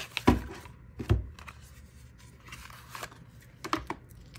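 A deck of oracle cards and its box handled on a tabletop: two sharp knocks about a quarter of a second and a second in as they are set down, then a few lighter clicks of cards near the end.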